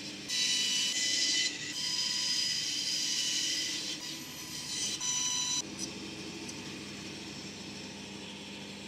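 Bandsaw cutting a thin plywood handle blank in short passes. The cuts come louder and higher-pitched for the first few seconds and again briefly about five seconds in, and the saw then runs on alone with a steady lower hum.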